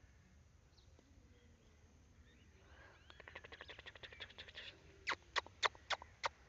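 A cat chattering, as cats do when watching birds. A fast run of soft clicks comes first, followed by sharp, separate clicks at about three or four a second.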